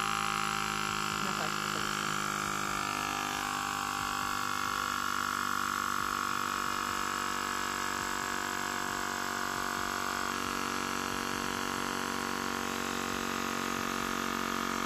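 Xiaomi Mijia Air Pump 2 portable inflator's compressor running steadily while pumping up a bicycle tyre: a high, even buzzing hum whose pitch shifts slightly about three seconds in and again about ten seconds in.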